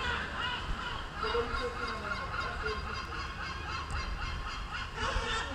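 A flock of gulls calling over one another as they feed on scraps of meat, short calls repeated throughout, with a louder cluster of calls about five seconds in.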